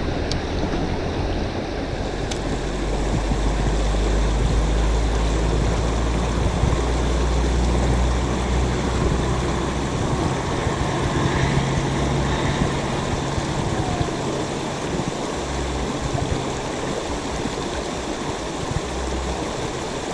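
Steady rush of shallow river water running over rocks, with wind rumbling on the microphone.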